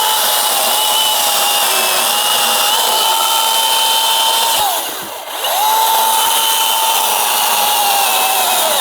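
Milwaukee battery-powered top-handle chainsaw cutting through a seasoned oak log, its electric motor running with a steady high whine. About five seconds in the motor winds down briefly and then spins back up to full speed.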